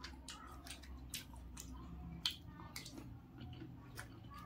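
Crisp fried puri shells crackling as fingers poke holes in them and press in the chickpea filling: a run of small irregular clicks, with one sharper snap about two seconds in.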